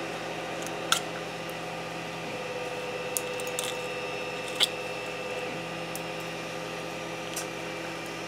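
A few short, sharp snaps and clicks of plastic support material being picked and broken out of a 3D-printed part with a small tool, the strongest about a second in and again halfway through, over a steady background hum.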